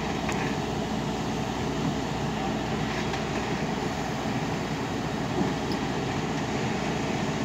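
Volvo crawler excavator's diesel engine and hydraulics working steadily as the machine shifts on a truck bed while being loaded, with its bucket braced on the ground.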